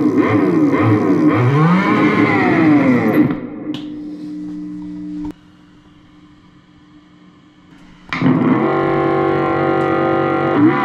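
Electromagnetic signal from an electric bike's hub-motor wiring, picked up by an EM sniffer and played through a small guitar amp. It gives buzzy pitched tones that sweep up and down, then settle into a steady hum about three seconds in. After a quieter gap, a second pickup's signal comes in about eight seconds in as a layered, steady buzzing tone.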